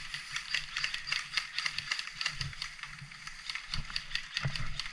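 Footsteps and rustling of a player moving on foot across the field, a quick irregular run of sharp clicks and crunches, with a few dull low thumps in the second half.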